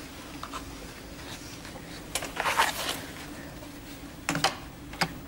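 Clicks and light knocks of doors being handled: a wardrobe door pulled open and a door handle and latch worked. They come in a cluster about two seconds in and again near the end.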